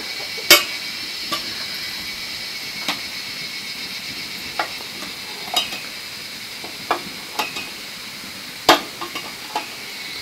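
Utensil knocking and scraping against a cooking pot as food is stirred: about a dozen sharp taps at uneven intervals, the loudest about half a second in and near the end, over a steady high-pitched hiss.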